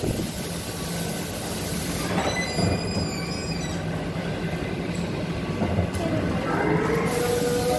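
Dark-ride car running along its track, with a steady low hum and a high metallic squeal of the wheels a couple of seconds in; a steady tone comes in near the end.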